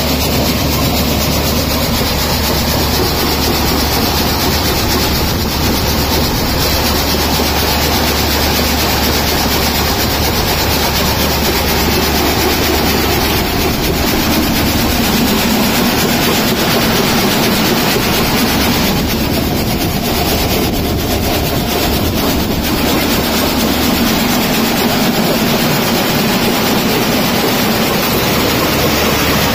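Tractor-driven peanut sheller (groundnut decorticator) running under load, shelling pods, with its sieve tray shaking the kernels. It makes a loud, steady, dense mechanical noise, mixed with the drive from the tractor.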